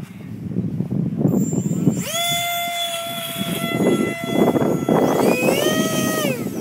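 Electric motor and propeller of a hand-held RC flying wing run up to a steady whine twice: first about two seconds in, then again about five seconds in, rising in pitch, holding and winding down near the end. Gusty wind on the microphone underneath.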